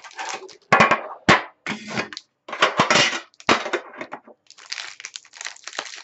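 A metal card tin clattering and knocking as it is pulled from its cardboard box and its lid and tray are set down on a wooden table. About four seconds in, the sound changes to the steady crinkle of a foil card pack being handled.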